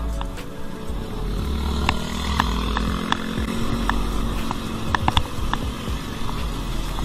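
Road traffic heard from a moving bicycle: a motor vehicle engine hums past about two to four seconds in, over a steady low rumble of wind on the microphone, with scattered sharp clicks and rattles.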